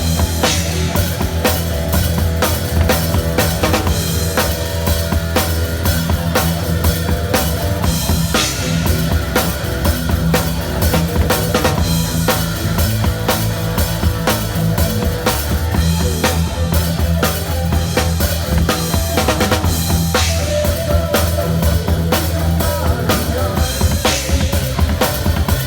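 Drum kit played with a band: a steady stream of bass drum, snare and rimshot hits over a sustained low bass line.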